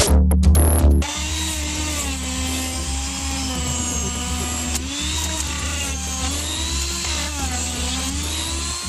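Handheld rotary power tool grinding into ice. Its motor whine dips in pitch several times as the bit bites in, then recovers.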